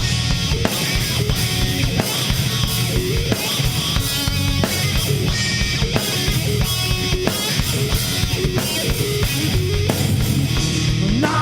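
Live heavy rock band playing an instrumental passage: distorted electric guitars, bass and a drum kit at a steady beat.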